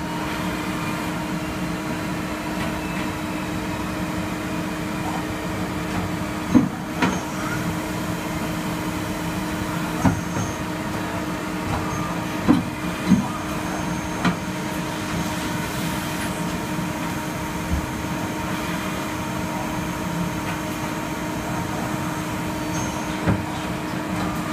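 A 2007 DMG Gildemeister Twin 65 CNC lathe running, a steady mechanical hum made of several held tones. Several short sharp clicks and knocks come at uneven intervals.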